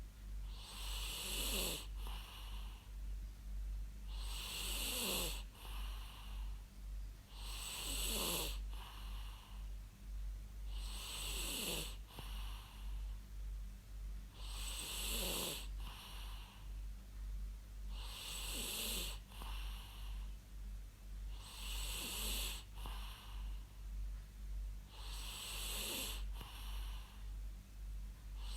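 A person snoring rhythmically, about one snore every three and a half seconds. Each snore is a breathy rasp whose pitch falls.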